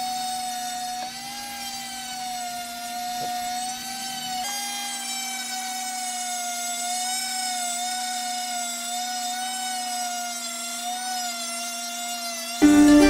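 Dremel-type rotary tool on a flex shaft running at high speed, a steady whine whose pitch wavers slightly as the bit is worked against the wood. Ukulele music comes in loudly just before the end.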